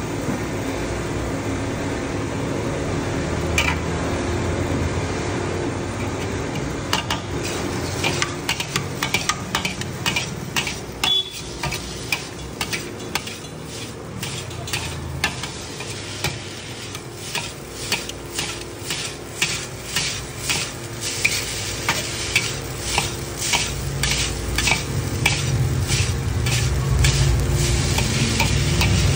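Chowmein noodles frying and being tossed in a large iron wok, with two long metal spatulas clanking against the pan. The clanks start a few seconds in and become steady and quicker, about two a second, in the second half.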